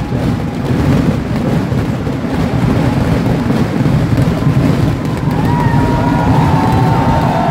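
Festival fireworks (vedikettu) going off in a continuous barrage of explosions, merging into a deep, steady rumble with crackling through it.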